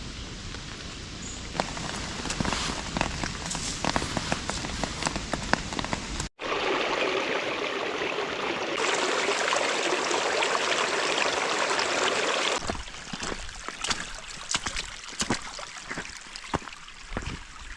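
Rain falling, with many separate drops striking close by. After a short break about six seconds in, the rain is heavier and louder for about six seconds, then eases to a lighter fall where single drips stand out.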